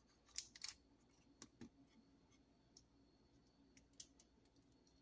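A handful of faint, scattered clicks and light taps as a steel-bracelet wristwatch and a digital pocket scale are handled, the scale being switched on and readied to weigh the watch.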